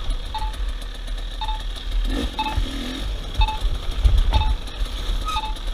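Short electronic beep repeating about once a second over the low rumble of a running vehicle engine.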